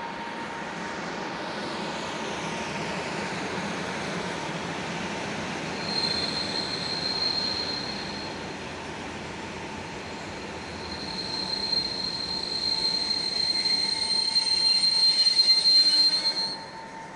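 Electric multiple-unit passenger train running past along the platform, with a high-pitched wheel squeal that comes in about six seconds in, fades, and returns louder from about eleven seconds until it stops shortly before the end.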